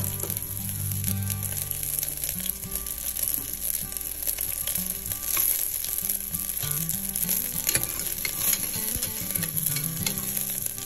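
Garlic cloves frying in hot sesame oil in an aluminium pressure cooker: a steady sizzle with scattered crackles from the spluttering mustard seeds. Near the end a metal ladle stirs the garlic around the pan.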